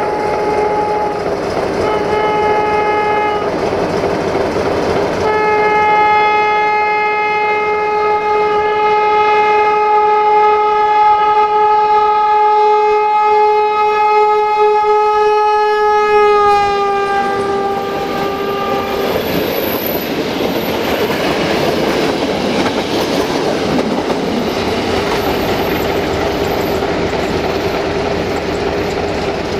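Diesel locomotive's horn: two short blasts, then one long blast of about eleven seconds that drops in pitch as the locomotive passes and fades out. The passenger train then rumbles by, its wheels clicking over the rail joints.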